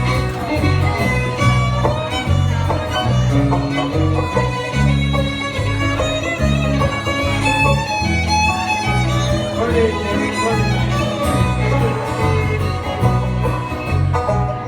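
Bluegrass band playing an instrumental break, a fiddle leading the melody over guitar and a steady bass line.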